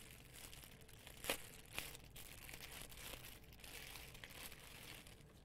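Faint crinkling of a bag being handled as an antenna is pulled out of it, with two sharp ticks about a second and a half in.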